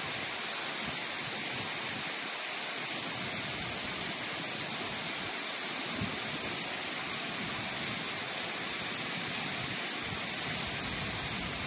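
Steady rush of a waterfall, an even hiss with no breaks.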